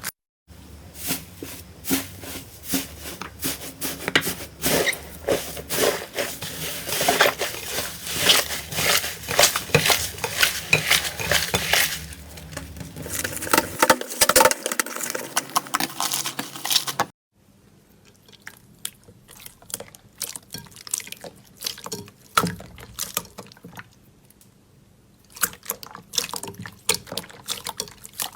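Slime being squeezed and pressed by hand: dense wet, sticky squelches and crackling pops. It drops suddenly to quieter, sparser clicks about two-thirds of the way through, then picks up again near the end.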